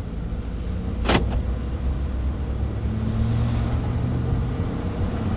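2014 Ford F-150 driving, a steady engine and road rumble whose tone strengthens about three seconds in, with one sharp click about a second in. No grinding from the front wheel ends: the taped-up cracked IWE vacuum hose seems to have stopped it for now.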